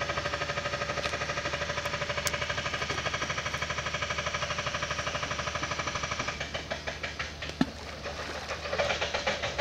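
An engine running with a rapid, even pulsing beat, thinning out after about six seconds. A single sharp knock near the end.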